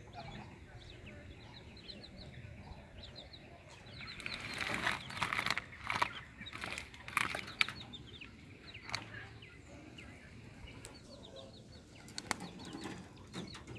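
Caged quail flapping their wings and scuffling on the wire, a burst of rustling and sharp clicks starting about four seconds in and lasting a few seconds, with a lone click near nine seconds. Faint short high chirps come and go before and after.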